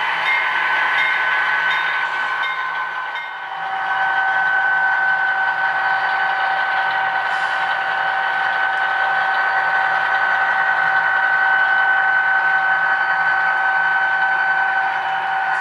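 Digital diesel engine sound from an HO-scale model locomotive's LokSound decoder playing through its small onboard speaker as the model train runs past. It is a steady running sound with a high, even whine, and it shifts slightly about three and a half seconds in.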